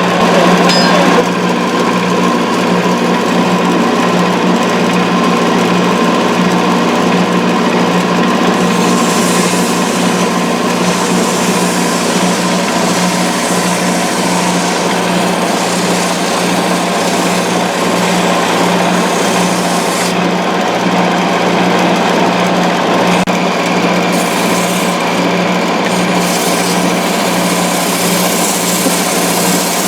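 Wood lathe running steadily with a motor hum while a turning tool cuts the spinning wooden finial, the cutting hiss coming and going as the tool works.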